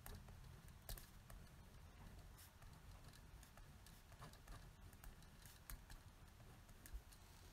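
Faint scratching and light tapping of a pen writing on paper, a few soft clicks scattered over a low hiss.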